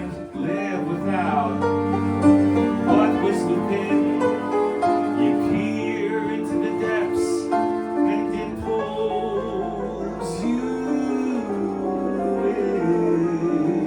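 Live band music: sustained string notes with piano, in a slow, flowing passage.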